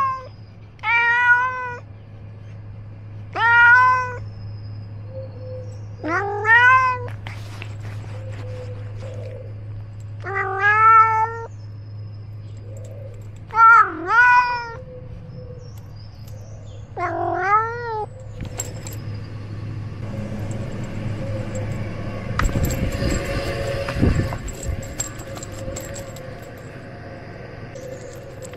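Domestic cat meowing repeatedly, about seven drawn-out meows roughly three seconds apart, most rising then falling in pitch. The meows stop about two-thirds of the way through, giving way to rustling and scuffling noise that is thickest a little later, over a steady low hum.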